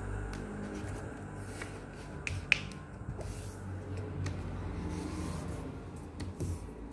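A sheet of paper being handled and creased on a wooden table: faint rustling with a few sharp clicks, the loudest about two and a half seconds in. A steady low hum runs underneath.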